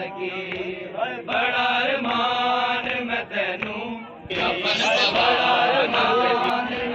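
Crowd of men chanting a noha, a Shia mourning lament, with many voices together. The chant dips briefly a little past halfway, then comes back louder.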